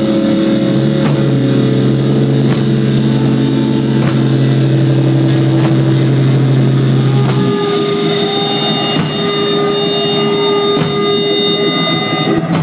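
Loud live instrumental rock band playing a sustained droning passage of held bass and guitar tones, which change pitch about halfway through, with a sharp drum hit about every one and a half seconds.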